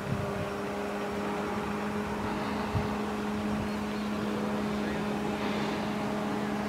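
Quarter-scale SIG Piper Cub RC plane in flight, its electric outrunner motor (Turnigy Rotomotor 1.60) and 20x6 propeller giving a steady, even drone. Two brief low thumps come near the start and about three seconds in.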